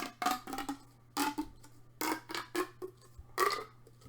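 Soft squishy fidget toys being squeezed and handled: a handful of short squeaky, rubbing squelches with pauses between them.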